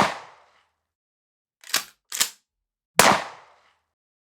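Two gunshots from a pump-action rifle about three seconds apart, each with a short ringing tail, and two quick clicks of the pump being worked back and forward between them.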